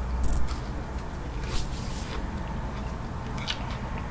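A person chewing food close to the microphone, with a few short, soft wet mouth clicks and smacks over a steady low hum.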